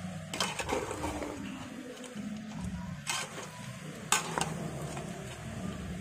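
Metal ladle stirring chopped duck in an aluminium pot, scraping and clinking against the pot a few times, with the food sizzling.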